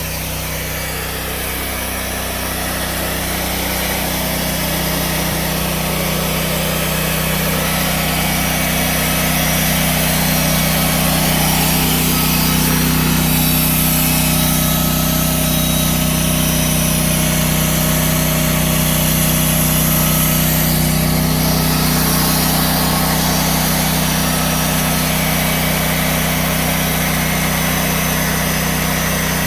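Sawmill engine running steadily, with a constant engine hum that grows a little louder over the first several seconds.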